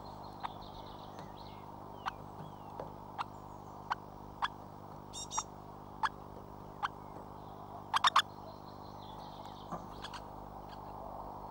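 Woodpecker pecking at a mesh sieve feeder: sharp single taps about once a second, with a quick run of three taps about eight seconds in. Faint bird chirps come in between, over a steady low electrical hum.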